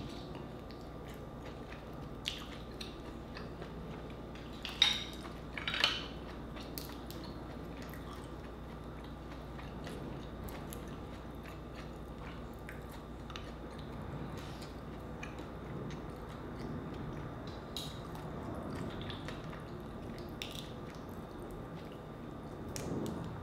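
Close-up mouth sounds of someone chewing cooked mussels, with small clicks of mussel shells and a fork. Two louder, sharp clicks come about five and six seconds in.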